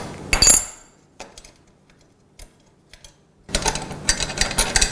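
A metal gas-oven burner tube and igniter assembly clattering as it is set down on the counter, with a brief metallic ring. After a few quiet seconds, the sheet-metal bracket and igniter rattle and scrape in a quick run of clicks as they are worked by hand.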